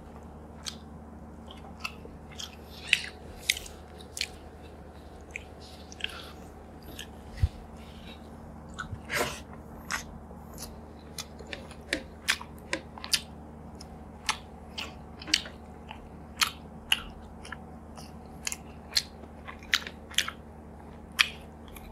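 Close-up chewing of rice and fried fish eaten by hand: irregular sharp mouth clicks and smacks, a few a second, over a faint steady hum.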